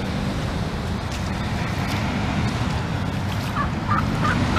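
Wild turkey calling: a run of short, quickly repeated notes, about three a second, starting about three and a half seconds in, over a steady low rumble of traffic.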